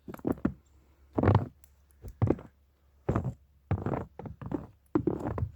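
Footsteps crunching through fresh snow on a trail, a steady walking pace of short thuds.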